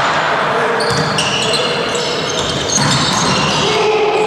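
Indoor volleyball rally: players' shoes squeak over and over on the court floor, over the steady din of the sports hall.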